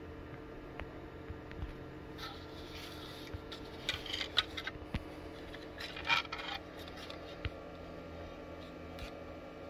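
Hard plastic model parts being handled: short bursts of clicking and rubbing as the body shell of a Bruder toy dozer is lifted away and its servo drive gearbox is picked up, with the busiest bursts about four and six seconds in. A faint steady hum runs underneath.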